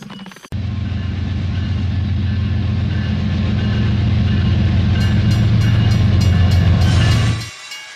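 Toy train running on plastic track, its motor and wheels making a steady low hum that grows louder as it approaches. About five seconds in, a regular clicking about three times a second joins as the toy crossing gates come down. The sound stops suddenly near the end.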